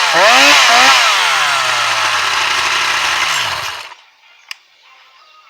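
Solo Twin twin-cylinder two-stroke chainsaw, on its first run after restoration, revved once more and then running down with a falling pitch until it dies about four seconds in. A single sharp click follows.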